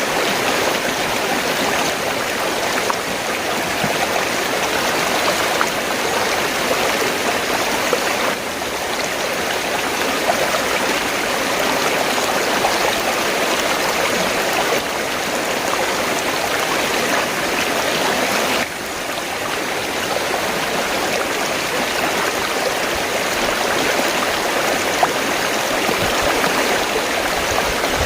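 River water flowing steadily, a continuous rushing of the current, with a slight sudden dip in level twice.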